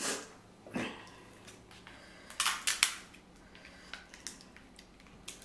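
Close-miked eating of king crab legs: sharp cracks and clicks of crab shell, loudest in a quick cluster of four or five about halfway through, with fainter clicks around it.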